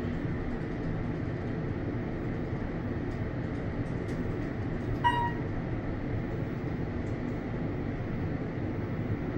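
Otis 211M elevator car travelling, a steady low rumble heard from inside the car, with one short electronic beep about five seconds in, typical of a floor-passing signal.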